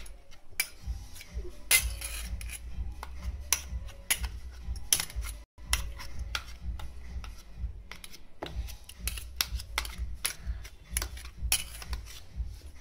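Steel spoon scraping and clinking irregularly against a stainless steel bowl as beaten egg and banana are mashed and stirred together.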